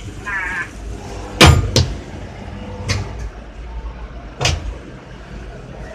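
Sharp metal knocks and clanks from working a motorcycle tyre on an electric tyre-changing machine, four separate strikes with the first two close together, over a steady low hum.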